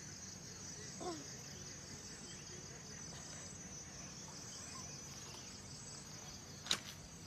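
Insects chirring steadily in a high band, under a low outdoor hiss. A short pitched sound about a second in and a single sharp click near the end.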